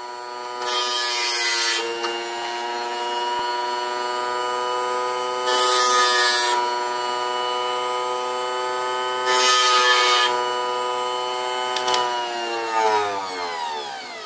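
Small bench grinder running with a steady whine while a steel spitzstick graver is pressed to the grinding wheel three times, each contact a hiss of about a second. Near the end, after a click, the motor is switched off and winds down, its whine falling in pitch.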